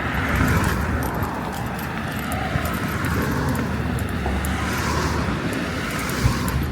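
Street traffic noise: cars passing on the road, a steady rumble with one pass swelling in hiss near the end.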